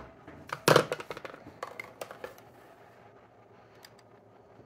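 A few knocks, clicks and rustles of things being handled and moved, the loudest about three quarters of a second in, then faint room tone. No sewing machine is running.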